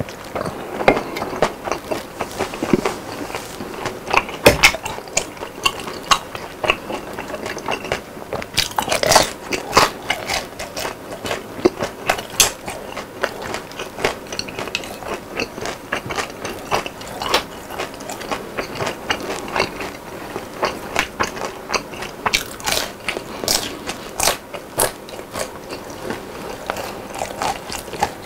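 A person chewing crispy fried food with a full mouth, close to the microphone: steady chewing with many sharp crunches at irregular intervals and a few louder bursts.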